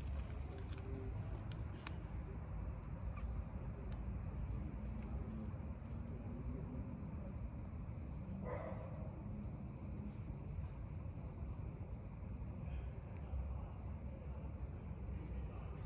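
Insects chirping in a steady, high, evenly pulsing trill over a low rumble, with one short call about halfway through.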